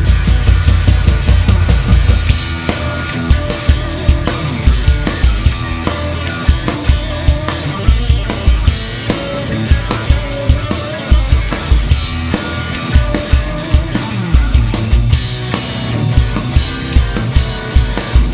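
Live rock band playing loud: electric guitar and bass guitar over a drum kit, with regular kick-drum and snare hits.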